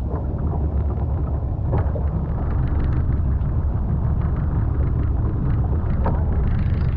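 A small fishing boat's motor running steadily, a low, even rumble.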